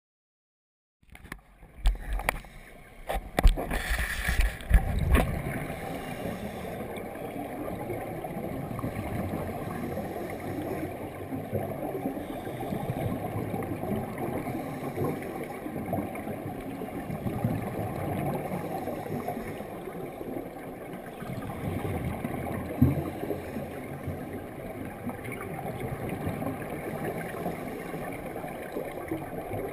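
Muffled underwater noise picked up through a GoPro's waterproof housing: a steady low rushing with slow swells. A few sharp knocks a second or two in, from the camera housing and monopod being handled.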